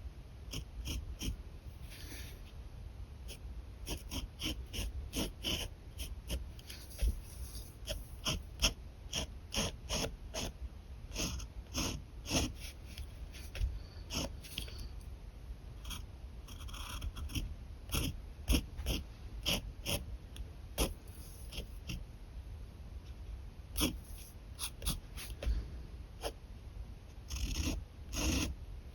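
Pen nib scratching on paper in many short, irregular strokes, with a few longer scratchy strokes, as a sketch is drawn.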